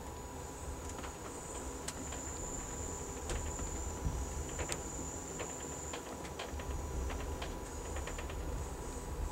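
Passenger train rolling: a steady low rumble with scattered sharp clicks and a steady high-pitched hiss.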